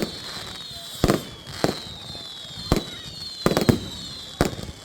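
Display fireworks going off: about seven sharp bangs at uneven intervals, with high whistling tones sliding slowly downward between them.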